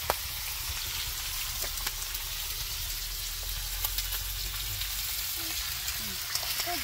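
Thick slices of pork belly sizzling on a cast-iron pot-lid griddle (sotttukkeong): a steady frying hiss with scattered small pops.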